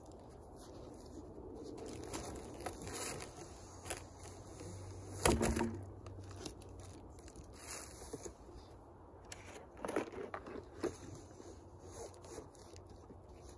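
Cardboard box being handled: irregular scraping and rustling of cardboard with short knocks, the loudest knock about five seconds in.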